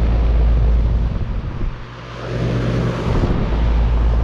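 2012 Bryant Legacy Line 2.5-ton central air conditioner's outdoor unit, with a Copeland scroll compressor, running loud and rough just after startup. A heavy low rumble drops away for a moment near the middle, leaving a steady low hum, then comes back.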